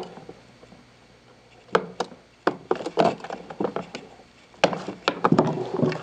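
Sharp clicks and knocks of hard plastic as a rocker power switch's retaining tabs are pressed in with a pointed tool and the switch is worked out of an air mover's plastic housing. The clicks are scattered at first and come in a denser cluster near the end.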